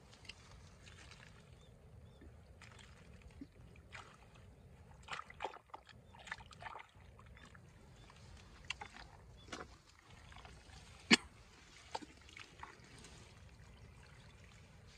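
Hands digging in wet mud and shallow muddy water: scattered squelches, wet slaps and clicks at irregular intervals. The loudest is a single sharp slap about eleven seconds in.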